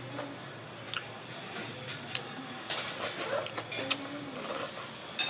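Eating sounds from a bowl of noodle soup: wooden chopsticks click sharply against the ceramic bowl several times, and noodles are slurped into the mouth near the end.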